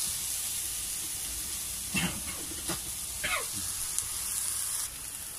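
Garlic, onion and chili sizzling in hot oil in a stainless steel frying pan: a steady hiss that drops away near the end, with a few brief sounds over it.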